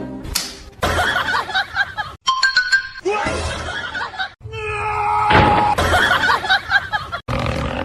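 Music, broken by abrupt cuts every second or two between short clips, with a brief run of steady high tones near the middle.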